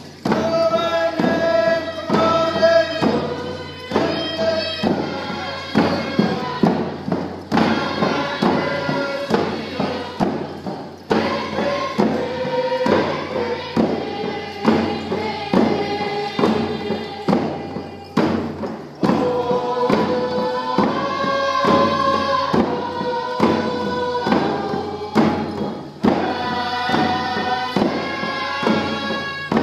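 A group of voices singing a Northwest Coast First Nations song to a steady, evenly spaced beat on a hand drum.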